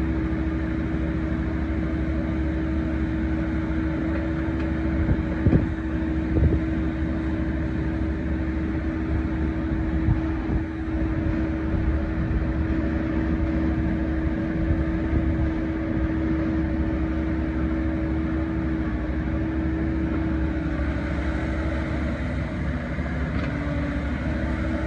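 Volvo ECR88D 8.8-tonne compact excavator's diesel engine running steadily with the hydraulics working the boom, arm and slew, giving a steady hum. A few knocks come about five to six seconds in.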